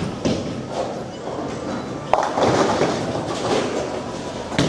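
Bowling ball hitting the pins: a sharp crack about two seconds in, followed by the pins clattering for a second or so.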